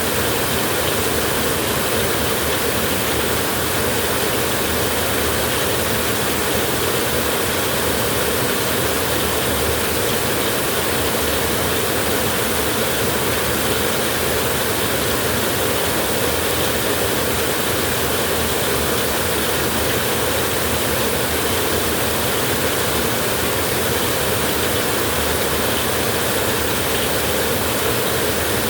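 Light drizzle falling as a steady, even hiss of rain.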